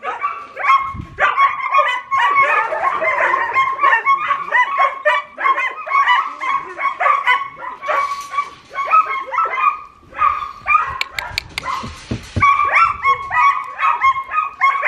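A dog barking and yipping in a rapid, near-unbroken string of high-pitched barks, a few a second, with a brief lull and some rustling about ten seconds in.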